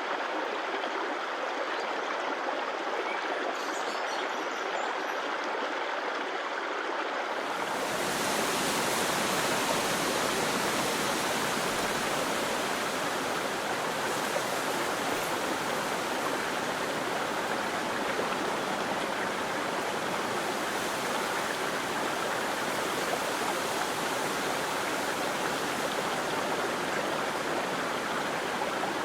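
Steady rush of flowing water, like a stream over rocks. About seven seconds in the sound abruptly grows fuller, deeper and a little brighter, and then stays steady.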